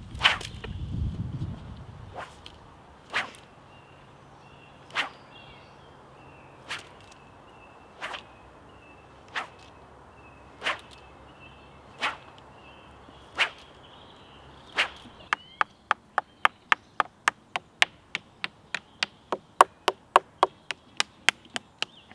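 Whip being cracked: single sharp cracks about every second and a half, then a quicker run of cracks about three a second from about fifteen seconds in.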